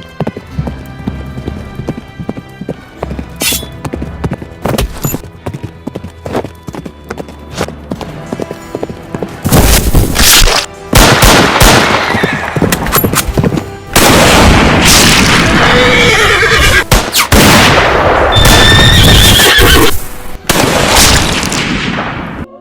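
Horse sound effects over background music: hooves clip-clopping, then from about ten seconds in, loud stretches of a horse neighing and whinnying.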